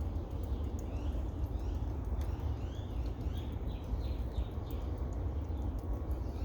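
A bird calling in a quick series of short, falling chirps for a few seconds, over a steady low rumble.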